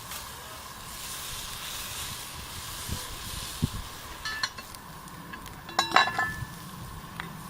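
Salmon sizzling in a skillet on a bed of coarse sea salt over a campfire, a steady hiss. A couple of dull knocks come near the middle, then metal clinks of a utensil against the pan, loudest about six seconds in.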